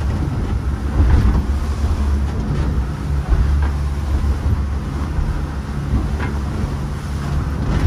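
Small catamaran's engine running steadily under way, a low drone, with the rush of wind and water over it.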